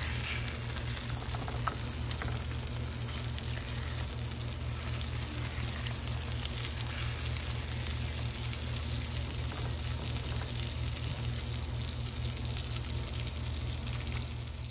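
Tomato slices frying in a pan of hot oil and butter, a steady, even sizzle, with a steady low hum underneath.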